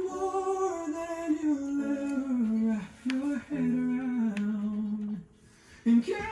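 Pop ballad vocal: a male voice holding long sung notes that step down in pitch, with a short break about five seconds in before the voice comes back near the end.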